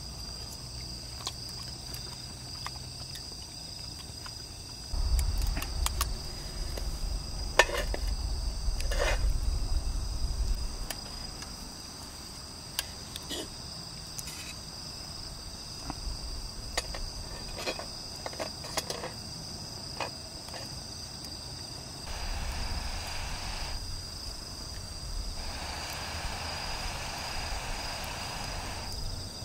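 Night insects keeping up a steady high-pitched drone. A low rumble runs from about five to ten seconds in, with scattered light clicks and two stretches of soft hiss near the end.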